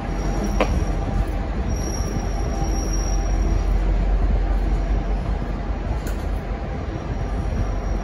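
V/Line locomotive-hauled passenger train at the platform: a steady low rumble of train noise, with a short falling squeak just under a second in and a faint high squeal a couple of seconds in.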